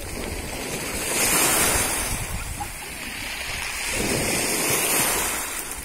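Sea water washing and lapping around people wading in the shallows, with wind buffeting the microphone; the noise swells twice.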